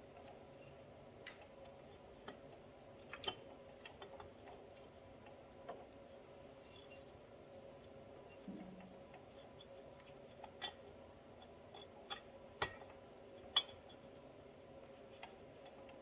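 Faint scattered metallic clicks and ticks as a Suzuki LT80 cylinder is worked down over the piston and its new rings and onto the cylinder studs, over a faint steady hum.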